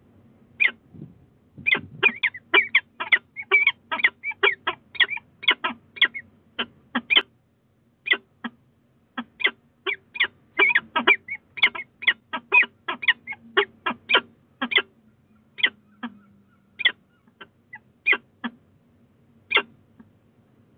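Peregrine falcon pair calling back and forth on the nest ledge in short, sharp calls: a quick run of about three or four a second, then slowing to about one a second toward the end.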